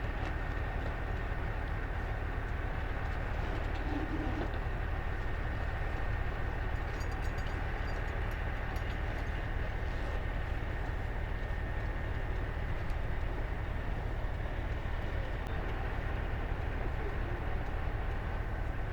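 Steady low drone of a boat's engine running at constant speed, with a faint steady whine above it.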